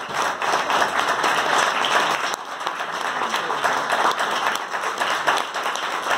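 Audience applauding steadily: many hands clapping together in a dense patter.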